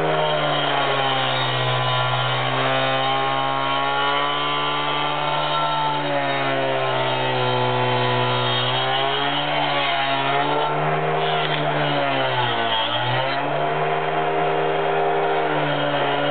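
Cordless angle grinder fitted with a wood-cutting blade running continuously while it cuts a circle in chipboard. The motor's steady whine sags in pitch as the blade bites, dipping most deeply about twelve seconds in before picking back up to speed.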